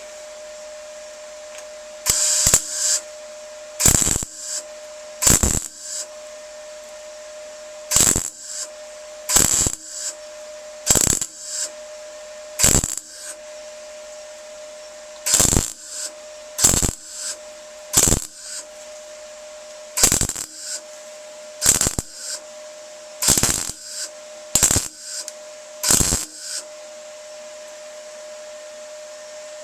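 Welder laying a series of short tack welds on a metal body panel: about fifteen brief bursts, one every second or so with a couple of longer pauses, over a steady hum.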